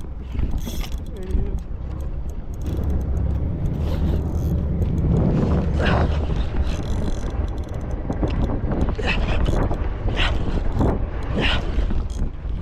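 Fishing reel being wound, a mechanical clicking over a steady low rumble of wind and boat, with brief voices.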